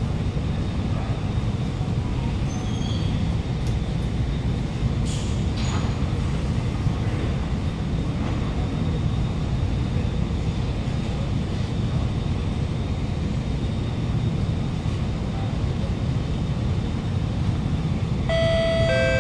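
Steady low hum inside an Alstom Movia R151 metro carriage standing at a platform with its doors open. Near the end the door-closing chime starts, a series of steady electronic tones.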